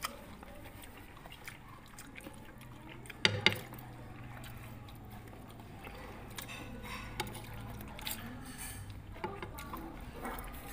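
Eating sounds: metal spoons clinking and scraping against an earthenware bowl of fruit salad, with small wet mouth sounds. One sharp knock a little over three seconds in is the loudest.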